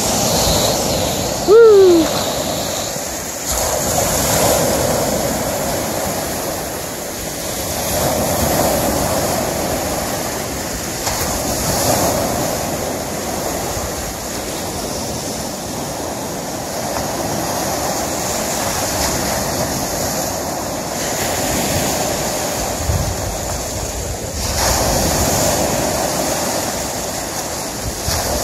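Surf breaking and washing up over a beach of rounded cobbles, swelling and ebbing every few seconds. About two seconds in, a brief loud call falls in pitch.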